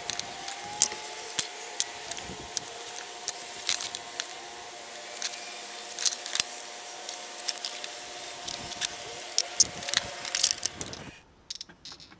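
Pencil scratching marking lines onto plywood along a steel square, with many short scratchy strokes and sharp clicks as the square is set down and shifted, over a faint steady hum. It cuts off abruptly about eleven seconds in.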